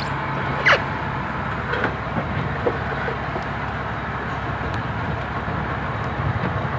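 A fishing boat's engine running steadily under a constant wash of noise. A few faint clicks and one short falling squeak come about a second in.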